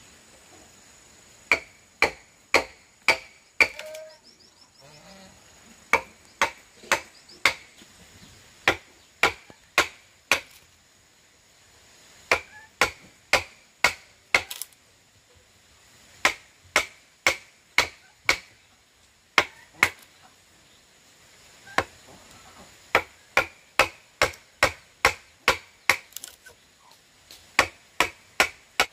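Repeated sharp strikes of a tool on wood, in runs of four to six blows about two a second, with short pauses between runs.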